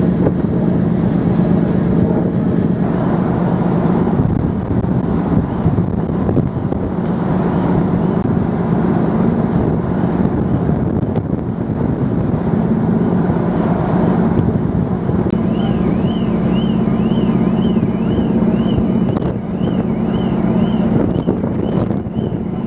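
The cross-Channel ferry Pride of Burgundy's engines give a steady hum under wind buffeting the microphone and the rush of the sea. About two-thirds in, a high chirp starts repeating about twice a second.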